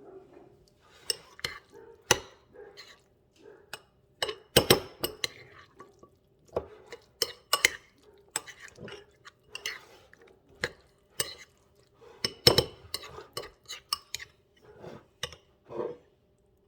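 Dishes and cutlery clinking and clattering in irregular sharp knocks, as in kitchen food preparation, with the loudest knocks about four and a half seconds in and again past twelve seconds.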